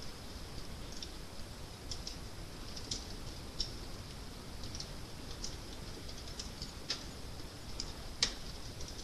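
Fire crackling: irregular sharp crackles and pops over a low steady rumble, the loudest pop about eight seconds in.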